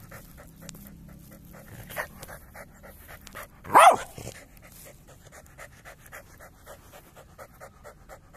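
Dog panting close by in quick short breaths, about three to four a second, with one loud short cry that rises and falls in pitch about four seconds in.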